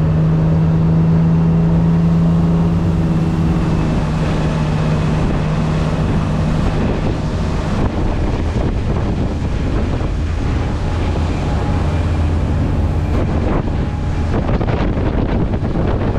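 Motorboat running at speed across a lake. Its engine hum is steady for the first few seconds, then fades under the rush of wind buffeting the microphone and water noise.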